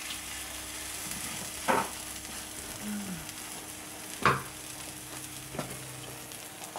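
Tapioca with coalho cheese frying in a nonstick pan with a faint steady sizzle while a wooden spatula works it over. Two sharp knocks stand out, about a second and a half and about four seconds in, with a lighter tap near the end.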